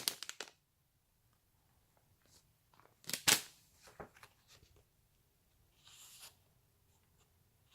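A plastic snack packet of cookies being handled: sparse crinkles and clicks, with one sharper crackle about three seconds in and a short soft rustle near six seconds.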